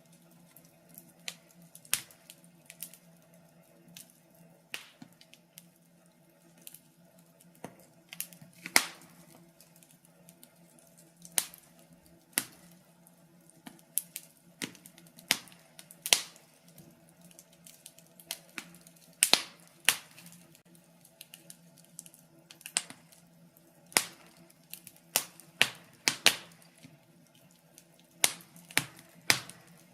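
Wood fire crackling in a fireplace: irregular sharp pops and snaps at an uneven pace, a handful of them much louder than the rest, over a faint steady low hum.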